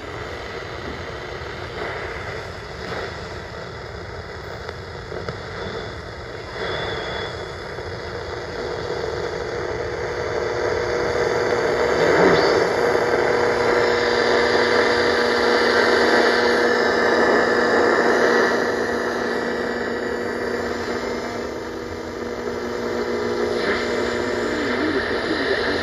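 Radio static and hiss from a GE 7-4664A clock radio's speaker, tuned between stations during a band scan, with faint steady tones under the noise. It swells louder about halfway through and eases off again.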